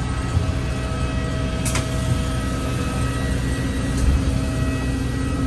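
Steady low engine and road rumble heard from inside a moving vehicle, with a faint steady whine and one sharp click about two seconds in.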